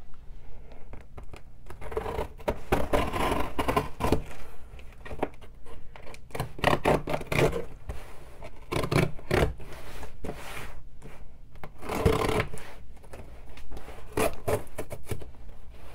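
Cardboard mailing box being opened: a blade slicing along the packing tape, with irregular scraping, scratching and rubbing of tape and cardboard and a few short knocks.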